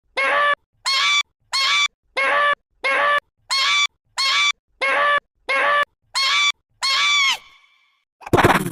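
A short high-pitched vocal sound clip looped over and over, about two copies a second, each identical and arching up then down in pitch: an edited sound-effect loop. The loop stops about a second before the end, and a different, louder sound begins right at the end.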